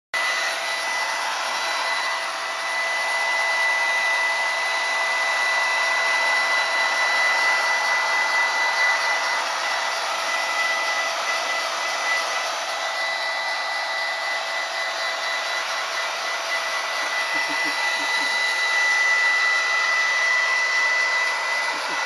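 Hand-held hair dryer running steadily, a continuous rush of air with a steady high whine, its nozzle held close against a dog's fur.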